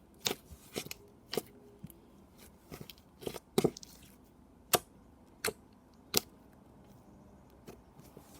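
Foam butter slime being poked and stretched by hand, giving a series of short, sharp sticky pops and clicks at irregular intervals, about eight of them, that stop a couple of seconds before the end.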